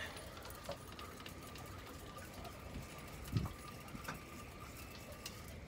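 Fishing reel being wound in against a hooked fish: a faint steady whirr from its gears with small clicks, and a soft knock about three and a half seconds in.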